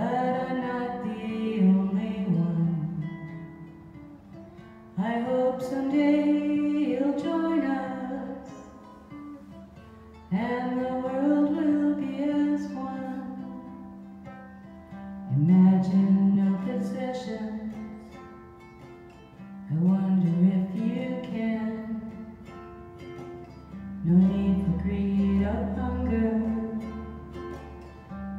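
A woman singing a song to her own ukulele strumming, with long sung phrases that start about every five seconds and fade away.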